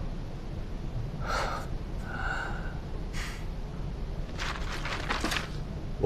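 A man's laboured breathing in pain: several gasping breaths and a short moan, from a badly beaten man.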